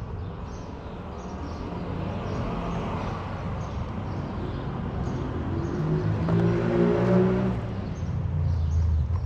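A motor vehicle passing in the street, its engine growing louder and peaking late, then easing off.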